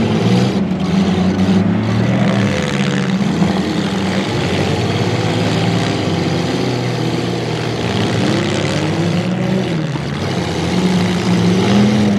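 Engines of several midsize demolition derby cars running and revving up and down.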